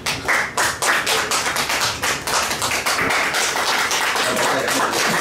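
A small audience applauding by hand. It starts with scattered claps and becomes steady, dense clapping within the first second.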